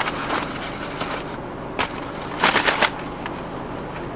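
Paper bag being handled, rustling and crinkling in short sharp crackles, with the loudest quick burst of crinkling about two and a half seconds in.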